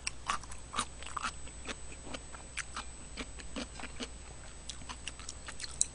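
A person chewing soft, chewy food close to the microphone, a small potato dumpling from rice cake soup: an irregular run of quiet wet mouth clicks and smacks.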